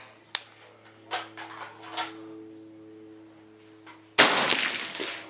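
A single suppressed shot from a .308 (7.62x51) rifle through a Surefire FA762K suppressor, a sharp report about four seconds in that trails off over about a second. A few light clicks come before it.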